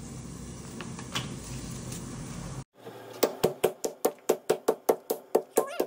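Metal meat mallet pounding a pork cutlet through plastic wrap on a wooden chopping board, a quick, even run of blows about five a second, flattening and tenderising the meat for schnitzel. The blows start a little after halfway; before them only faint handling clicks.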